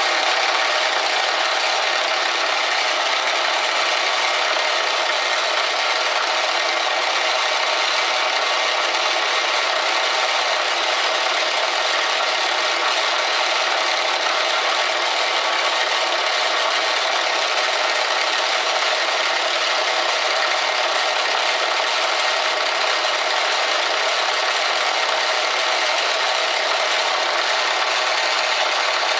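Metal lathe turning a brass workpiece while a round form cutter scrapes it to shape: a steady, even rasping hiss.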